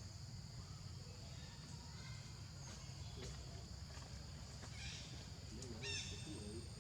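Steady, faint chorus of crickets or other insects, with a few short, high, falling chirps about five to six seconds in.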